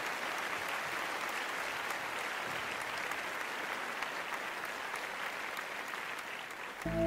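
Audience applauding steadily. Just before the end the applause cuts off and music with held notes begins.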